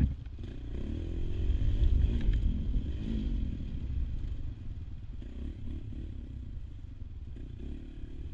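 AJP PR7 Adventure's single-cylinder engine running under way off-road, its pitch rising and falling with the throttle. A sharp knock comes at the very start, with light clatter from the bike over the rough trail.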